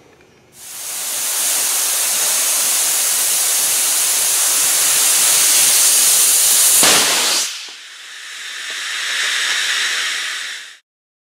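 Loud steady hiss from the high-pressure pipe test rig. It swells in over the first second, peaks briefly near seven seconds and then drops. A second, quieter hiss then builds and cuts off suddenly.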